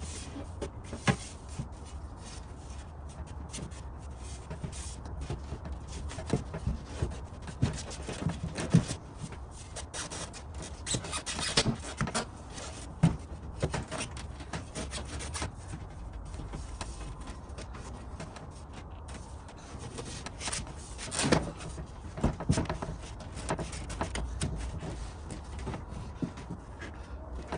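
Rear side-door window glass being worked into a car door: irregular rubbing and scraping with scattered light knocks and clicks, over a steady low hum.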